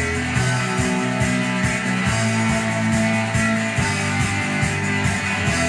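Guitar music with a steady beat, played from a vinyl LP on a Dual 1228 turntable.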